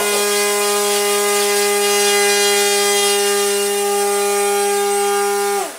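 Brushless electric motor and propeller of a Blade Theory Type W RC flying wing running at full power during a bench power test, a steady high whine with strong overtones. Near the end it is throttled off and spins down with a falling whine.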